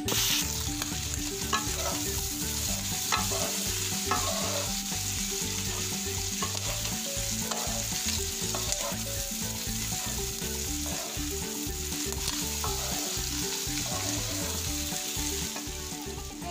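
Squid, petai beans and chillies sizzling in hot oil in a stone-coated wok while being stirred with a wooden spatula, with a few short scrapes of the spatula against the pan in the first few seconds.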